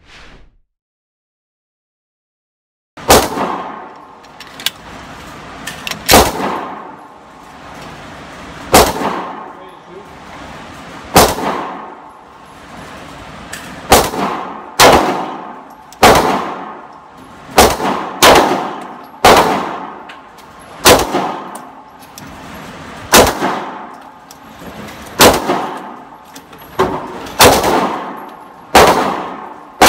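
A pistol fired single shots at a steady pace, starting about three seconds in: some twenty sharp reports, roughly one a second, each followed by a short echoing decay.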